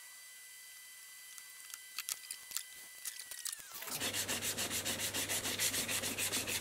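Wood veneer on a cabinet corner being sanded by hand with fine sandpaper, fast even back-and-forth rubbing strokes that start about four seconds in, flushing the veneer edge at the corner. Before that, only a few light ticks.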